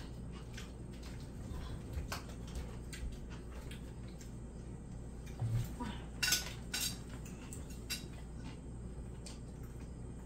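Cutlery clinking and tapping against plates and dishes at a meal: scattered light clicks, with a cluster of sharper clinks about six to seven seconds in, over a low steady hum.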